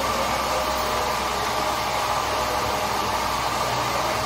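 Steady mechanical whirring with a constant hum, from running machinery, unchanging throughout.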